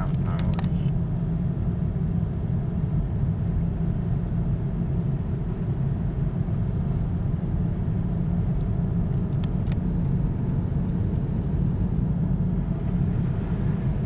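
Steady low rumble of a car driving on a snow-covered road, engine and tyre noise heard from inside the cabin, with a few faint ticks near the start and about ten seconds in.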